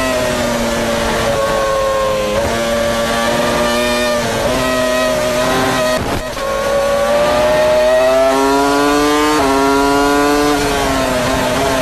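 Williams FW24's BMW V10 Formula One engine at full throttle, heard onboard: the pitch climbs steadily and drops sharply at each upshift, several times. About halfway through it falls away briefly as the throttle is lifted, then climbs again through more upshifts.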